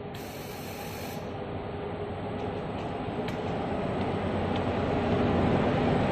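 Steady mechanical rumble of industrial workshop machinery on a pipe welding line, growing gradually louder, with a few faint clicks about three seconds in.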